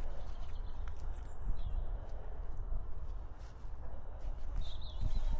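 Outdoor ambience: a low rumble on the microphone and footsteps, with a few short high bird chirps about a second in and again near the end.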